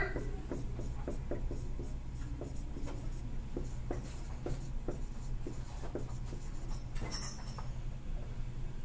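Marker writing on a whiteboard: a string of short strokes and squeaks as words are written, then a brief rustle about seven seconds in.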